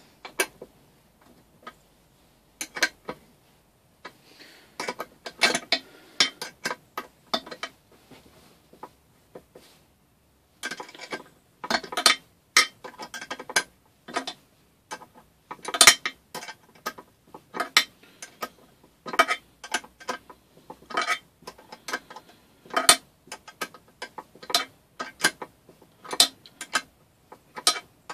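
Irregular metallic clicks and clinks of hand tools and small metal engine parts being handled and fitted while a 3 hp small engine is put back together. The clicks are sparse at first, with a quiet gap about a third of the way in, then come thicker and faster.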